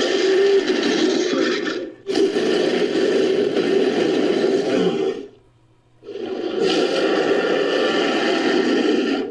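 Synthesized dragon roar sound effect, layered from sampled dragon and dinosaur roars: three long, raspy roars in a row, each about three seconds. The first is already under way and stops about two seconds in, the second follows almost at once, and the third starts after a short pause.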